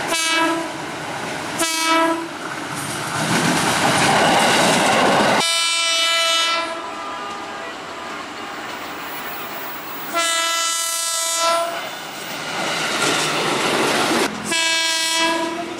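KRL Commuter Line electric train horn sounding in five blasts: two short toots about two seconds apart, then three longer blasts. The rushing noise of a train running past fills the gap between the second and third blasts.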